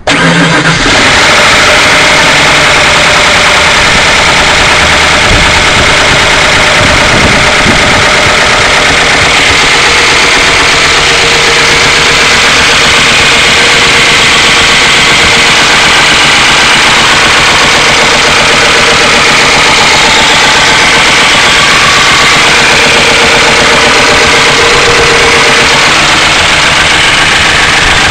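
1992 Ford Crown Victoria's 4.6-litre SOHC V8 running steadily, very loud and close to the microphone. The owner puts its noise down to low oil pressure.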